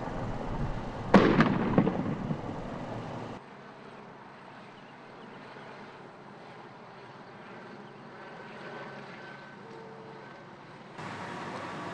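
A single loud blast about a second in, its rumbling echo dying away over about two seconds: a bomb squad's controlled detonation with its robot in a parking lot. Quieter steady outdoor ambience follows.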